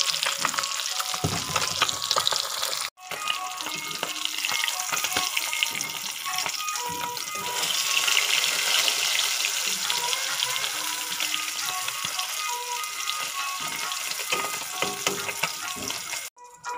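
Two whole common carp frying in hot oil, a dense, steady sizzle and crackle of spattering oil. The sound cuts out briefly about three seconds in and again near the end.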